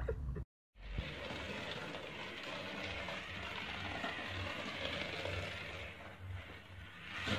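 Small battery-powered toy car running along a plastic snap-together track, its tiny motor and gears giving a steady mechanical whir and rattle that dips briefly near the end.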